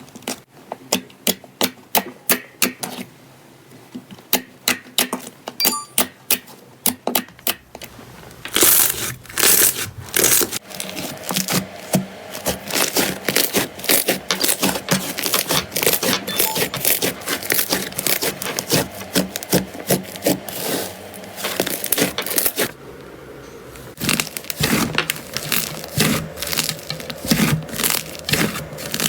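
Slime being pressed and worked by hand, giving sharp crackling and popping clicks. The clicks are spaced out at first, crowd into dense crackling about a third of the way in, pause briefly near the end, then start again.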